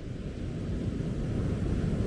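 Wind buffeting the microphone as a low rumbling rush, with the wash of surf behind it, swelling louder over the two seconds.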